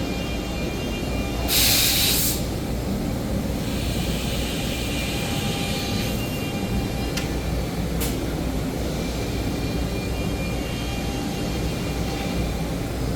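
FANUC Robodrill 5-axis machining cell running with a steady mechanical hum, broken by a short loud hiss about a second and a half in and two sharp clicks around seven and eight seconds.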